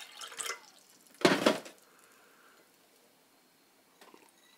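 Water poured from a plastic filter pitcher into a glass tumbler, with short splashes and drips. About a second in comes a louder knock as the pitcher is set down on the counter, then a few faint sips from the glass near the end.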